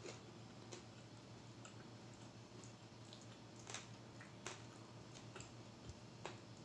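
Faint eating sounds: a handful of soft, scattered clicks and wet mouth noises from someone chewing fried salmon, over a low hum.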